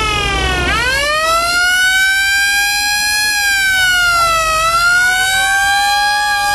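Mechanical siren wailing, its pitch sweeping up sharply twice at the start and then slowly rising, falling around four and a half seconds in, and rising again.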